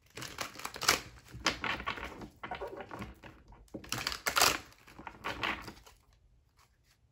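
A tarot deck shuffled by hand, the cards slapping and flicking together in a run of quick, clicky bursts that dies away about six seconds in.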